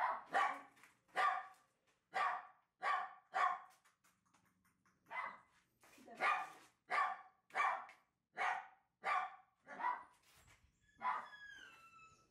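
Shiba Inu puppy barking, a string of short high yaps about one to two a second with a brief pause partway through. Near the end comes a short, high, slightly falling whine.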